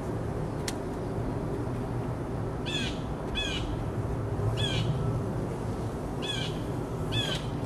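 A bird calling: five short, identical chirps, each with a quick falling hook, starting about three seconds in and coming roughly once a second, over a steady low background hum.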